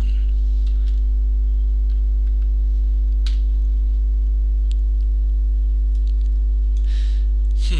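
Steady electrical mains hum in the recording, a low buzz with many evenly spaced overtones, with a few faint clicks in the middle and a short breath near the end.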